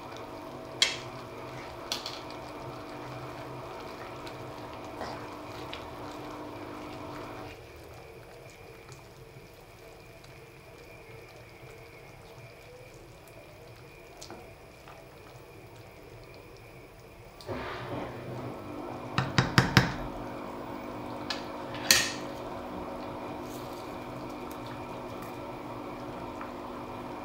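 Moringa leaves being worked into a simmering pot of soup on a gas stove: a steady hum and bubbling, with sharp clinks of a utensil against the pot. The hum drops away for about ten seconds in the middle, and the loudest moment is a quick run of clinks about two-thirds through, followed by one more.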